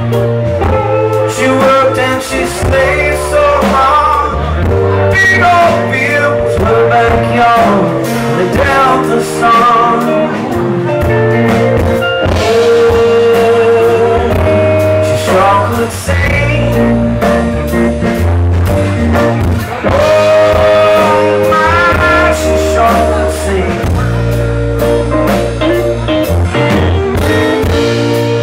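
Live band playing a song with acoustic guitar, electric guitar, bass guitar and keyboard, with a man singing lead.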